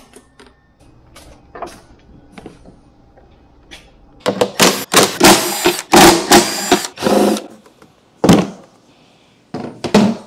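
Handheld power driver run in a string of short, loud bursts, loosening fasteners to take the scooter apart, after a few light clicks and knocks of handling parts.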